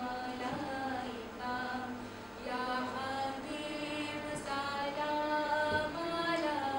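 A group of voices chanting in unison, holding long notes that slide from one pitch to the next.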